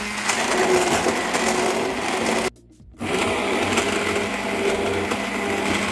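Hand-held immersion blender running in a glass measuring jug, blending coconut milk with cashew nuts; the motor stops for about half a second around the middle, then starts again and runs on steadily.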